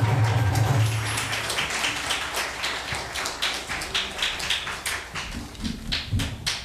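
The song's last low chord holds for a second or so and fades. Then a crowd applauds with many hands clapping, the claps thinning out near the end.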